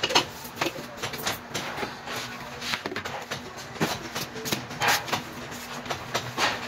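Scattered knocks, clicks and rustling from a person moving about and handling things, over a faint steady hum.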